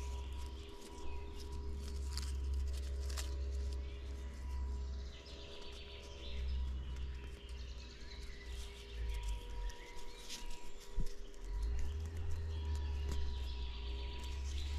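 Woodland ambience: small birds chirping now and then over a steady low rumble, with scattered light clicks and rustles from hands working paracord around wooden sticks.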